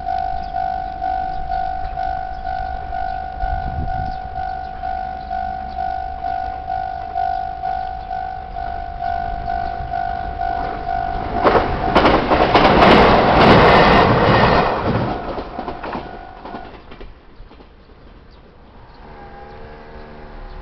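Japanese level-crossing warning bell ringing in a steady two-tone ding, about two a second. Partway through, a train passes through the crossing, loud for about four seconds with clattering over the rails. The bell stops soon after the train has gone.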